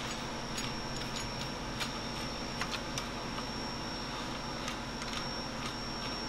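Small, irregular metallic clicks and ticks as mounting bolts and a flat washer are fitted by hand to a Brembo front brake caliper, over a steady background hum and a faint high whine.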